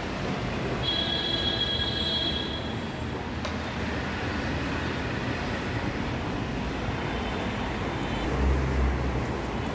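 Delhi Metro train running on the elevated line: a steady rumbling noise with a high whine for about two seconds near the start.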